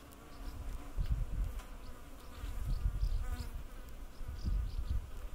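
Wasp buzzing in flight, clearest about three seconds in, over an uneven low rumble.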